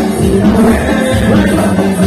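Live tropical cumbia band music, loud and steady, with keyboards, drums and percussion over a strong bass line.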